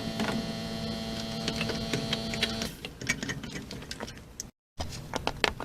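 A small motor running with a steady hum of several tones, cutting off under three seconds in, followed by scattered light clicks and taps.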